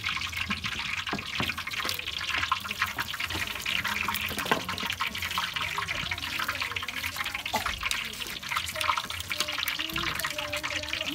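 Running water: a steady splashing rush with many small crackles and drips.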